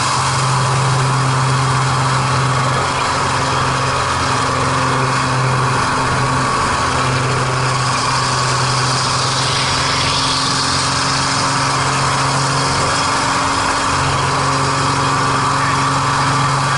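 MX2 aerobatic plane's piston engine and propeller heard from the cockpit, running with a steady drone over rushing airflow during aerobatic manoeuvres.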